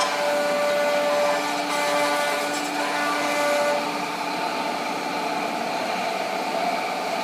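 Spindles of a 10-head CNC wood router running and cutting wood, a steady whine over a rough cutting noise. The whine fades about halfway through, leaving mostly the cutting noise.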